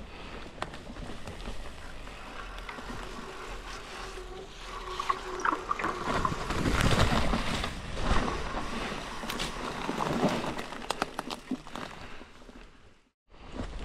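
Commencal Meta mountain bike being ridden over a wet, rocky trail: tyres rolling on wet ground with the chain and frame clattering over bumps, louder and busier in the middle as the bike rolls over rock drops, with wind rushing on the microphone.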